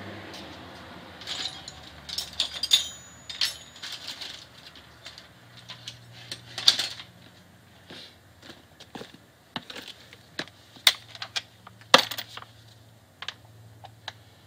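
Metal hand tools and sockets clinking and rattling as they are handled, a scattered series of sharp clicks and clinks.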